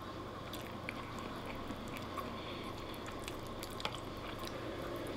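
A person eating spaghetti: quiet chewing and small wet mouth sounds, with scattered faint clicks of a fork against a wooden plate.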